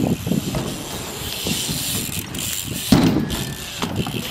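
BMX bike being handled, its parts clicking, rattling and knocking irregularly, with one louder knock about three seconds in.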